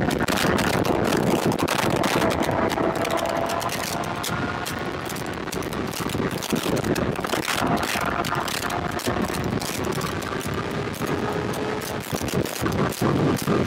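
Kawasaki ZX-6R's inline-four engine running at road speed, its pitch slowly dropping as the bike eases off. Heavy wind buffeting on the microphone, gustier near the end.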